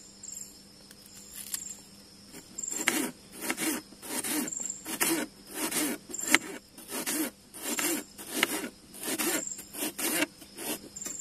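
Kitchen knife slicing a small onion on a plastic cutting board: short regular strokes, about one and a half a second, starting about three seconds in. Crickets chirp in the background throughout.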